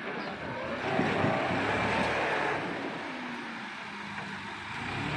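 Massey Ferguson tractor's diesel engine running as it pulls a heavily loaded trolley past close by. The engine is loudest about a second in, eases off, then rises again near the end.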